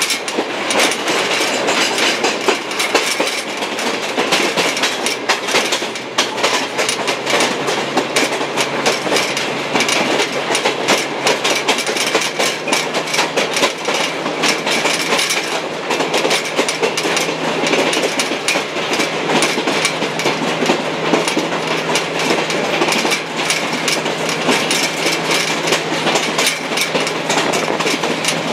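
A shortline excursion train in motion, heard from aboard: the car's steady rumble and rattle, with wheels clicking over rail joints. A low steady hum joins in about five seconds in.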